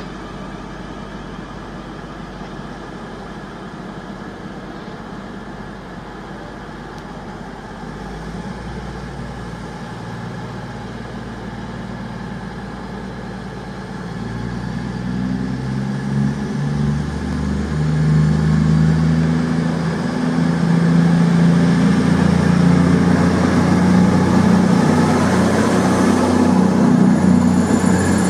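CrossCountry Voyager diesel multiple unit idling at the platform, then its underfloor diesel engines power up about halfway through as it pulls away, getting steadily louder as it passes close by, with a faint rising whine near the end.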